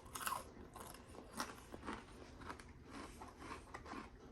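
A person chewing a mouthful of crunchy fried batter bits, with irregular crunches about two or three times a second.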